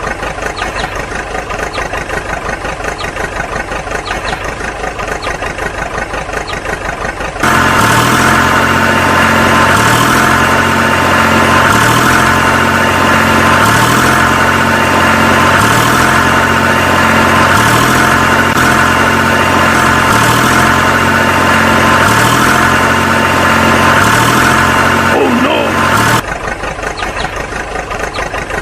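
Engine idling sound, steady at first. About 7 seconds in it gives way to a louder engine sound with a low throb that repeats about once a second. Near the end the first, quieter idle returns.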